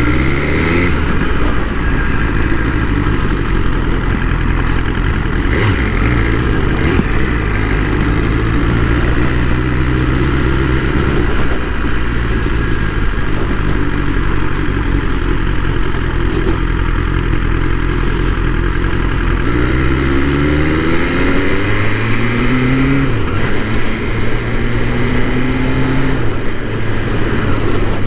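BMW S1000R's inline-four engine running at a low, steady speed, then rising in pitch as the bike accelerates about twenty seconds in. The pitch dips briefly at a gear change a few seconds later, then holds steady.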